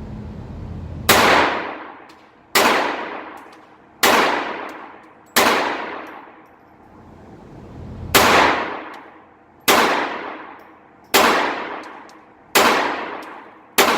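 Phoenix Arms .22 LR semi-automatic pistol firing nine shots, about one and a half seconds apart with one longer pause in the middle, each crack followed by a long echoing decay.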